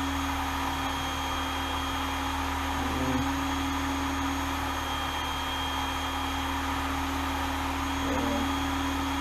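Work Sharp Ken Onion Edition belt sharpener's motor running steadily with the extra-fine polishing belt turning. Its hum dips briefly in pitch twice, about three seconds in and near the end, as a knife blade is drawn across the belt.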